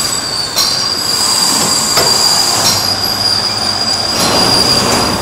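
Capstan lathe running, a steady high whine over the machine's noise, with a few sharp clicks along the way.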